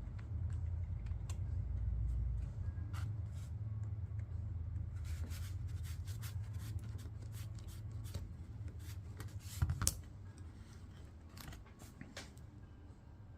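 Scattered light clicks and taps of small parts and hand tools being handled during work on a small-engine carburetor, busiest in the middle with one sharper knock near ten seconds in, over a low steady hum.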